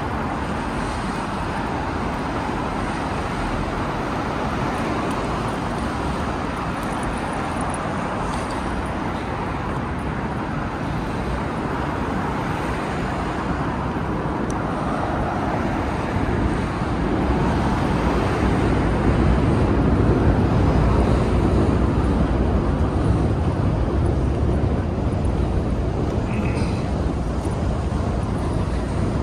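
City road traffic: a steady wash of passing cars, swelling to a louder, deeper rumble a little past the middle as traffic passes close, then easing.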